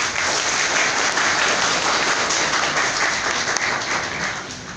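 Audience applauding in a lecture hall to welcome the invited speaker: a dense round of clapping that starts suddenly, holds steady and dies away near the end.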